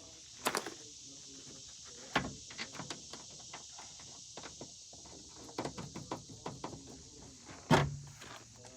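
Scattered light clicks and taps of hand tools and parts being handled as a screw is fitted to hold a truck door's lock actuator in place, with a louder knock near the end. A steady high hiss of crickets runs underneath.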